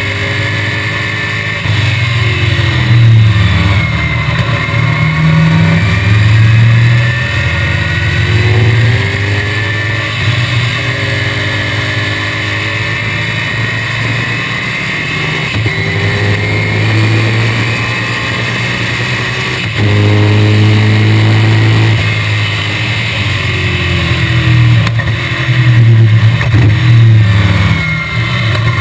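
1965 BTM Cheetah roadster's Chevrolet small-block V8 at racing speed, heard from the open cockpit. Its pitch climbs repeatedly through the gears and drops back on each shift and lift. It gets louder about two-thirds of the way in as the car accelerates hard.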